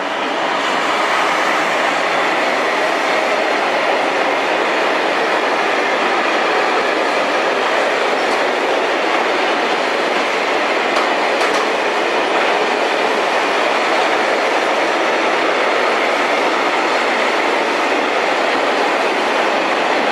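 Freight train of covered wagons and tank wagons passing, its wheels running steadily on the rails. The noise builds over about the first second and then holds at a steady level.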